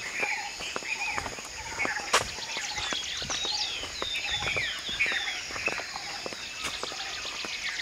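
Night chorus outdoors: a steady high insect trill with many short chirping calls over it. Footsteps on dirt ground, and one sharp click about two seconds in.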